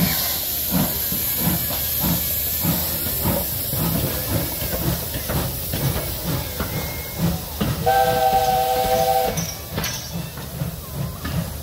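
Finnish Railways Pacific steam locomotive No. 1016 'Lady Patricia' working away under steam: a steady hiss of steam with regular exhaust beats about two a second. About eight seconds in, its whistle sounds a chord of several notes for about a second and a half.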